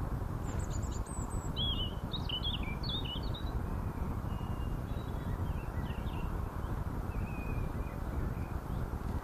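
Small birds chirping, a quick run of short twittering calls in the first few seconds and a few fainter whistles later, over a steady low background noise.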